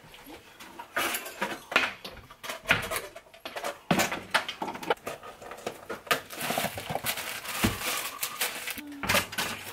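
Kitchen handling noises: a run of clicks and knocks on the counter, then plastic packaging rustling as frozen waffles are pulled from their bag.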